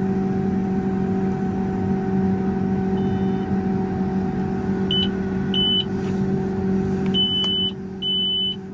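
Case IH Quadtrac's engine idling steadily, heard inside the cab, with the cab's electronic warning beeper sounding: two short high beeps about five seconds in, then a regular run of longer beeps a little under once a second from about seven seconds in.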